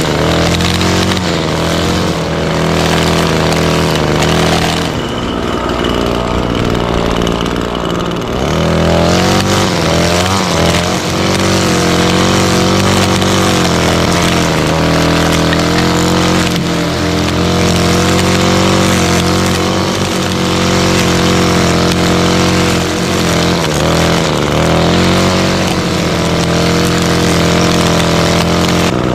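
Gas string trimmer engine running steadily at high speed while the line cuts weeds, its pitch sagging now and then under load.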